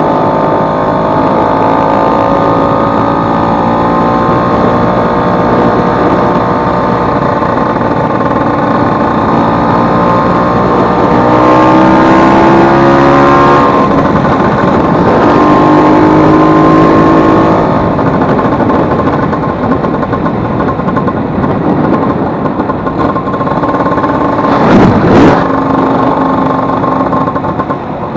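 Vespa 150 scooter engine running and being revved, its pitch rising and falling, with two louder rev-ups in the middle and a couple of sharp knocks near the end. This is the engine after repair, with its broken elastic pinion (cush-drive gear) replaced.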